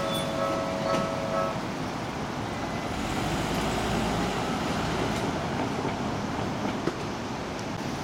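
Japanese railway level-crossing warning bell ringing, cutting off about a second and a half in as the barriers begin to lift. Road traffic noise follows, with a car driving over the crossing.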